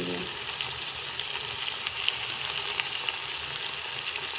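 Onions and tomatoes frying in oil in a metal kadhai: a steady sizzling hiss with scattered small crackles.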